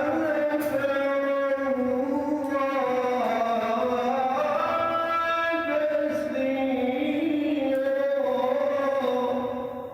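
A single voice reciting the Quran in the melodic tilawah style, holding long, drawn-out notes that bend and glide slowly in pitch. The voice fades out near the end.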